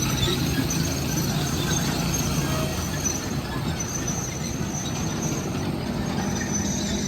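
Train running along the track: a steady low rumble with a thin, high wheel squeal that comes and goes.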